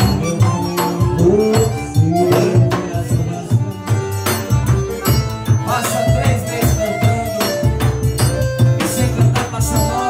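Live forró band playing: accordion melody over a steady beat of hand-played drum and percussion.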